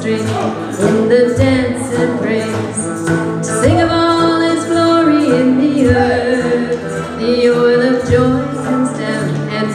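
Messianic worship song music: a woman singing live over an instrumental backing, the melody held in long notes.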